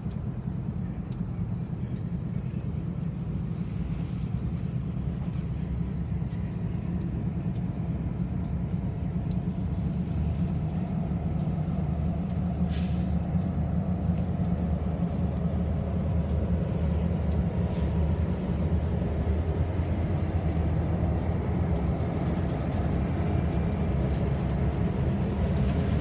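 Diesel-electric freight locomotives (a GE ES44C4 and EMD SD70ACEs) running as the train passes, a steady low engine drone that grows louder about ten seconds in. There is a brief hiss about halfway through.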